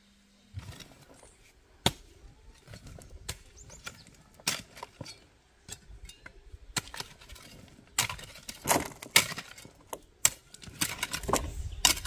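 Long-handled digging tool striking stony soil again and again at an irregular pace, with sharp clinks and duller thuds.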